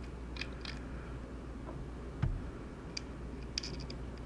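Light, scattered clicks and ticks of a precision screwdriver and small screws being worked out of a drone's plastic shell, with one low thump about two seconds in.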